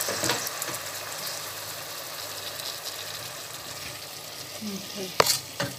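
Chicken, onion and grated tomato sizzling in oil in an aluminium pot, stirred with a wooden spoon: a steady frying hiss that slowly eases. There are two sharp knocks near the end.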